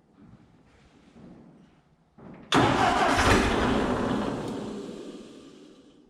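Ford 8N tractor's four-cylinder flathead engine being cranked by the starter without catching: the cranking starts suddenly about two and a half seconds in, slowly fades and stops just before the end.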